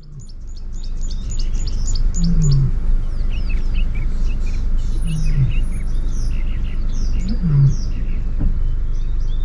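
Several birds singing and chirping over a steady low rumble, opening with a fast run of repeated high chirps. A low, falling two-part call repeats about every two and a half to three seconds.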